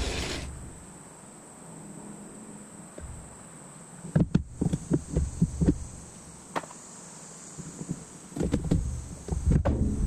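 Wooden deck timbers knocking and clattering as they are pulled loose and handled, in two spells of sharp knocks, about four seconds in and again from about eight and a half seconds. A steady high insect drone runs underneath, and a running chainsaw engine dies away right at the start.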